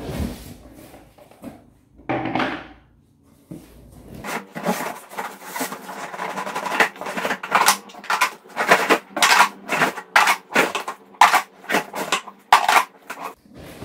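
Cardboard shipping box and plastic planter tiers being handled as the tiers are lifted out of the box: rustling, scraping and light knocking, becoming a fast, irregular run of crackles about four seconds in.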